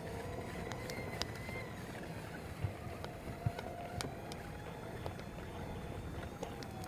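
Walking on a trail: a low wind rumble on the microphone, scattered footstep crunches and clicks, and a faint, wavering engine hum in the distance.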